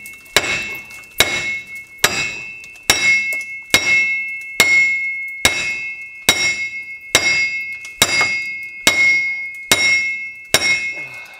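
Steel hammer striking a rusted-in front wheel hub bearing in its steering knuckle, about thirteen steady blows a little under a second apart, each leaving a ringing metal note; the blows are meant to break the corroded hub free of the knuckle.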